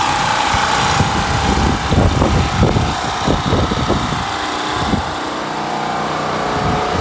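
Open-frame portable generator engine running steadily under a tarp shelter. About two to four seconds in, bursts of tarp rustling and wind buffeting the microphone come over the engine.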